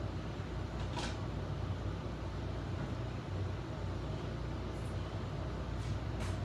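Steady low hum and hiss of background noise, with a few faint brief ticks.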